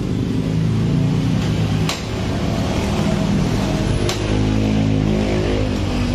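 Background music: sustained low chords that change every couple of seconds, with a sharp hit about every two seconds.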